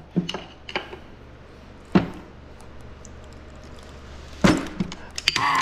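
Scattered metal clicks and taps from hand tools working on a split aluminium manual-transmission case, with one sharp knock about two seconds in and a cluster of clicks near the end, over a steady low hum. A man's pained yelp begins at the very end.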